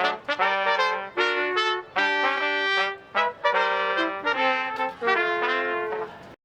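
Brass music: trumpets playing a tune in chords, in short phrases, cut off abruptly near the end.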